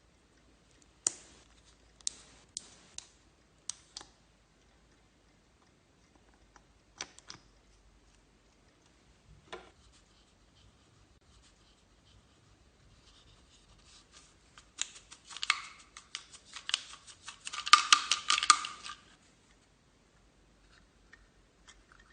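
Slime being worked by hand with mixed-in pieces: a handful of sharp clicks or snips in the first four seconds, a few scattered ones later, then about four seconds of dense crackling near the end.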